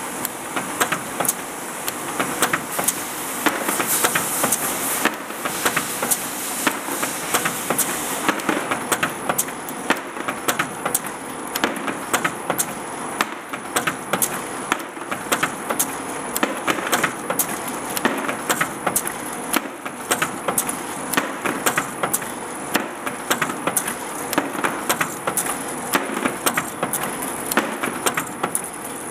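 Capcoder 570 capping machine running: small capped bottles clicking and knocking against each other and the guides on the conveyor, several sharp clicks a second at irregular spacing, over a steady mechanical running noise.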